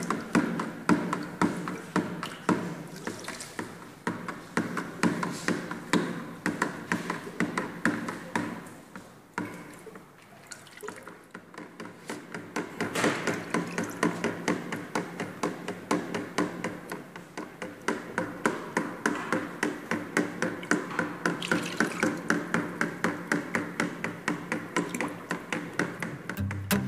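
A metal stirring rod knocking against the side of a plastic bucket about three times a second as fabric softener is stirred by hand, with the liquid sloshing. The knocking eases off briefly around ten seconds in.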